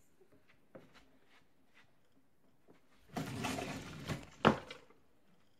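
A wooden dresser drawer sliding open for about a second, then a sharp knock as it hits its stop. Faint clicks and rustling of clothes come before it.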